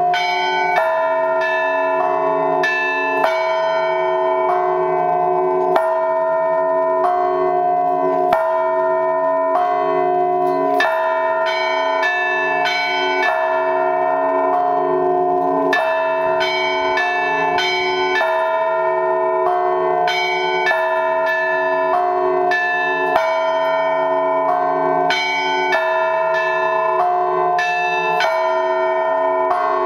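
Russian Orthodox weekday peal (budnichny zvon) on church bells: the large blagovestnik bells and the middle podzvonny bells struck in a steady rhythm, about two strokes a second, their tones overlapping and ringing on.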